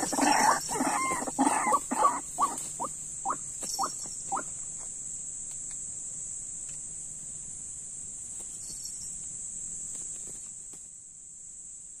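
White-breasted waterhen calling: a quick run of repeated clucking notes that space out, weaken and stop about four seconds in. A steady high insect drone runs underneath.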